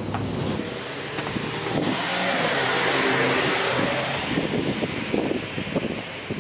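A vehicle passing by: a rush of noise swells to a peak about three seconds in and fades away, with a few sharp clicks near the end.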